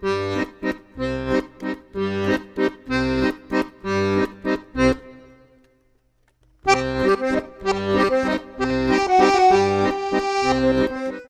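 Accordion music with a steady bass-and-chord beat. It fades and stops about five seconds in, then starts again about a second and a half later.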